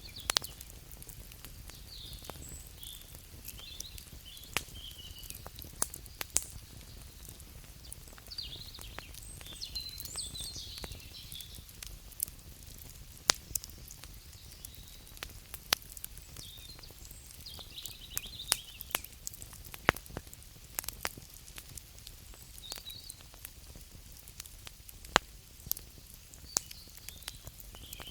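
Wood fire crackling, with irregular sharp pops, some much louder than the rest, over a low steady hiss. Scattered high chirps sound in the background throughout.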